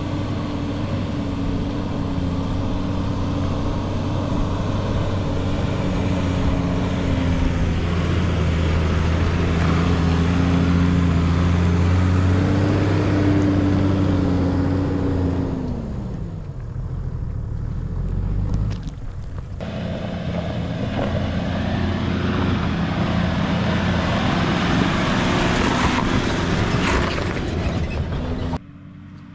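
Toyota LandCruiser 100 Series 4WD engine working hard up a steep dirt climb: a steady, loud note that rises briefly and then drops away about halfway through. After a few quieter seconds, engine and road noise from a vehicle driving on the track come back.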